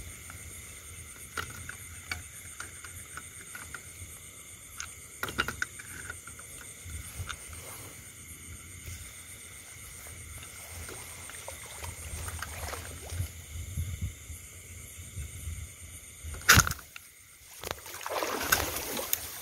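Long-handled snake clamp worked up into a bamboo clump: scattered light clicks and leaf rustles, then a sharp snap about sixteen and a half seconds in as the clamp closes. Near the end a burst of rustling as bamboo leaves and a branch caught in the clamp are dragged.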